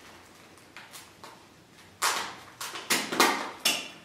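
Wrapping paper crinkling and rustling as a parcel is unwrapped by hand, in several quick, irregular bursts in the second half after a quiet start.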